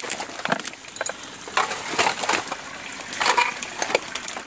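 Irregular crunching and cracking of dry twigs and brush, with several sharper snaps.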